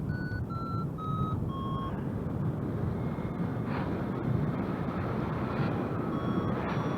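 Flight variometer beeping its climb tone, a string of short beeps that step down in pitch and slow over the first two seconds as the lift weakens, then fall silent and come back faintly near the end. Steady wind rush on the microphone underneath.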